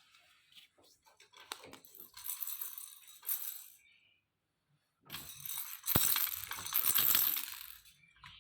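Small hard plastic toy pieces being handled, clicking and rattling against each other, with a longer clatter about two seconds in and a louder one from about five seconds to near the end.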